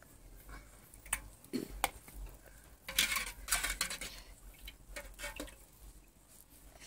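A ceramic bowl of blanched potato halves being tipped to drain off water: a few sharp clinks of crockery, then a rush of draining water and shifting potatoes about three seconds in, followed by more small clinks.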